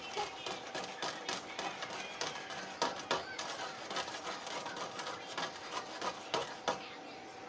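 Kitchen utensils and containers clicking and knocking irregularly, with a few sharper knocks, over a steady faint hum.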